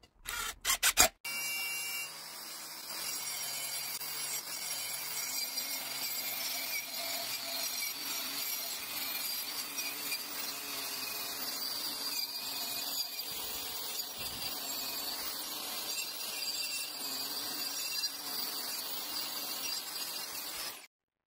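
A few sharp clicks, then a long steady abrasive scraping of a tool working a surface, which cuts off suddenly near the end.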